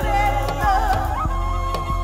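Music: a woman singing a wavering, ornamented vocal line into a microphone over a backing track with deep bass and a steady beat, settling into a held steady note a little over a second in.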